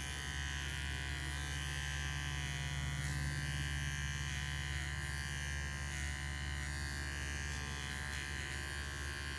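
Electric pet clippers buzzing steadily as they shave a small patch of fur from a cat's hindquarters.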